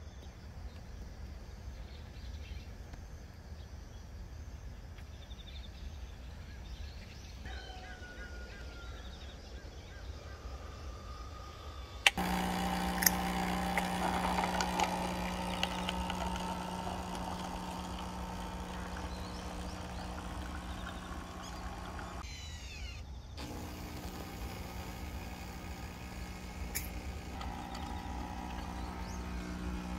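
Capsule coffee machine brewing: its pump starts about twelve seconds in with a steady hum as coffee pours into a paper cup, stops briefly around twenty-two seconds, then carries on.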